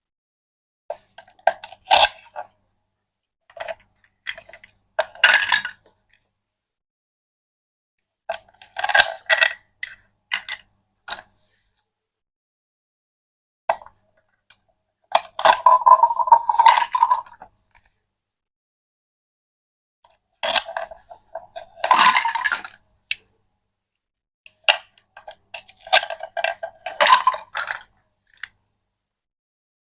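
Small hard miniature toy pieces clinking and clattering as they are handled and set down, in short bursts every few seconds with dead silence between them.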